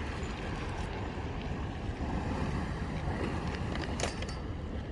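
Steady low rumble of wind and sea wash against the breakwater, with a few short clicks about four seconds in.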